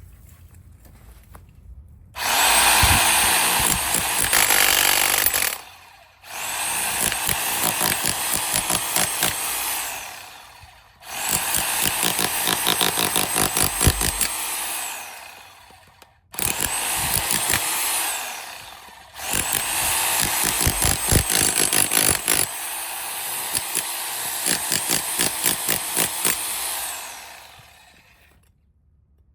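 Berserker 1300 W SDS-Max electric demolition hammer breaking concrete: five bursts of rapid hammering over the motor's whine, each a few seconds long with short pauses between, the last one the longest.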